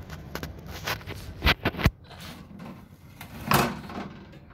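Three quick light knocks about a second and a half in, then a brief rustle near the middle, over a faint low hum: handling noise.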